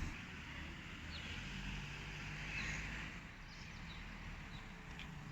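Low steady rumble of road traffic and idling vehicle engines at a level crossing, with several short, high chirps of small birds.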